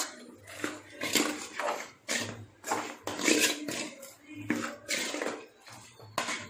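Metal spatula scraping and stirring quail pieces in masala around a metal pan, in repeated strokes about one or two a second.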